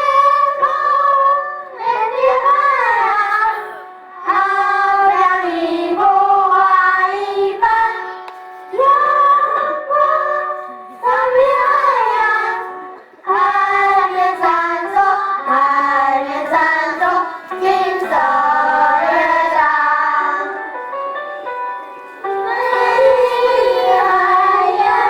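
Children singing a melodic song in phrases with instrumental accompaniment.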